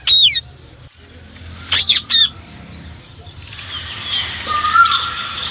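Indian ringneck parakeet calling: a shrill squawk at the start and two more in quick succession about two seconds in, then softer hissy chatter with a wavering whistle that grows louder near the end.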